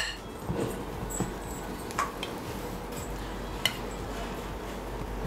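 Slotted steel spatula scraping and tapping against a bowl as cooked rice is scooped and turned over, with a sharp clink right at the start and fainter clinks about two and three and a half seconds in.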